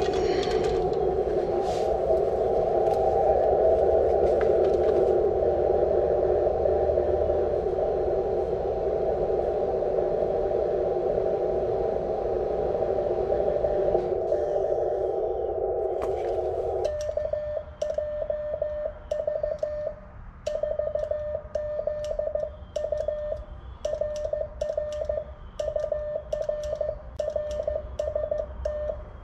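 Amateur radio transceiver in Morse (CW) mode: for about the first 17 s a steady band of receiver hiss, then a single Morse beep keyed in dots and dashes as the operator sends with a paddle key, with faint clicks along with the keying.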